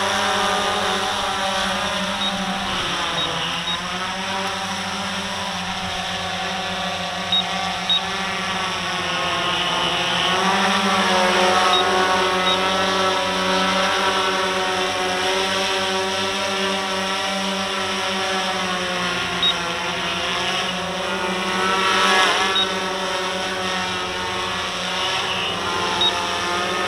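RC Timer S1100 octacopter's eight electric motors and propellers droning in hover, with a stack of pitches that keep wavering up and down as the motor speeds change. A few brief clicks are heard along the way.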